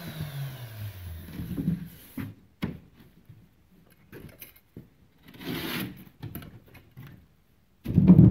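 A Rotozip spiral cutting tool spinning down after being switched off, its pitch falling over about a second. Then knocks and rubbing as the cut drywall sheet is handled and slid into place, with a scrape about five seconds in and louder bumping and rubbing near the end.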